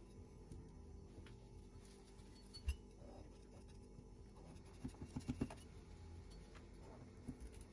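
Faint scraping of a knife blade run around the inside of a steel cake ring to free a set cake. There is one sharp metal tap a little under three seconds in and a quick run of knocks around five seconds in.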